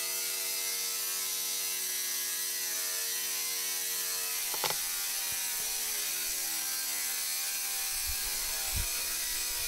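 Angle grinder with a cut-off disc cutting into a stainless steel table top, giving a steady motor whine over a grinding hiss, with one short tick about halfway through. The grinder is not really strong enough for this stainless steel and is only getting the hole started.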